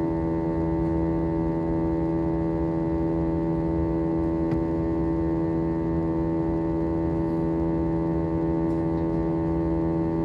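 Aircraft engine giving a steady, unchanging drone made of several held tones, the strongest of them low-pitched: the sound the video presents as strange and different from normal engine running.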